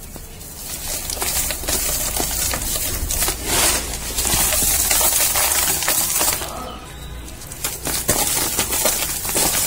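Dry, dusty cardboard crushed and crumbled between fingers, a dense crackle of many small cracks and tears. It is loudest in the middle, eases briefly about seven seconds in, then picks up again.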